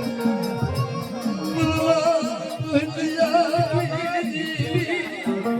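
Live Gujarati devotional folk music: a wavering, ornamented melody line over a hand drum beating steadily underneath.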